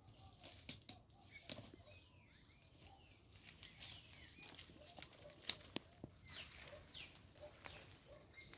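Faint forest ambience: birds giving short high calls that slide downward, several times, with scattered sharp clicks and snaps like twigs in leaf litter.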